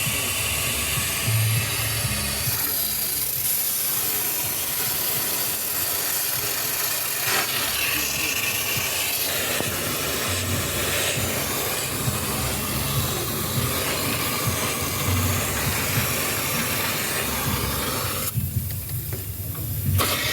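A steady, loud hiss with a low rumble beneath it; the hiss drops away about eighteen seconds in.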